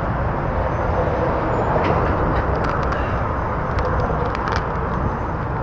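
Steady rumble and hiss of traffic crossing a steel bridge, with a few light clicks and taps in the middle.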